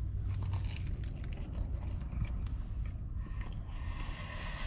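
A man biting and chewing a toasted, buttered everything bagel, with small crunches, over a low steady hum.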